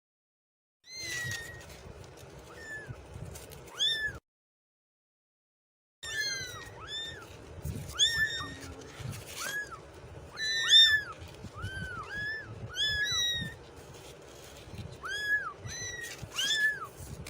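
Kittens meowing over and over, short high calls that rise and fall in pitch, sometimes overlapping. The meowing breaks off for about two seconds of silence a few seconds in, then starts again.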